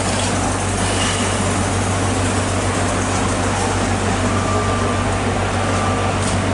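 Steady machine drone: an even hiss over a constant low hum.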